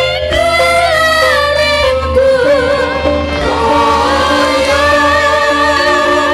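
A group of female Javanese singers (sinden) singing together in unison through microphones, on long held notes with vibrato, over a steady instrumental accompaniment.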